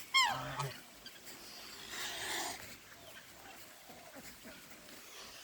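Domestic waterfowl calling: one loud call falling in pitch right at the start, then a softer, noisier sound about two seconds in.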